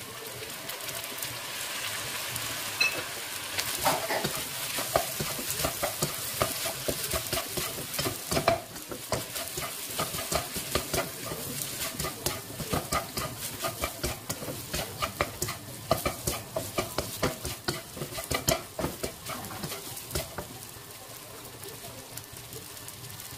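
Fried rice sizzling in a nonstick frying pan, with stir-fry sauce just poured in, while a plastic slotted spatula stirs and turns it in many quick scrapes and taps against the pan. The stirring eases off near the end.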